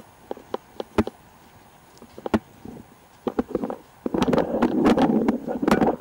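Footsteps on a dirt trail, a short step sound about every half second. Near the end comes about two seconds of loud rustling noise on the microphone.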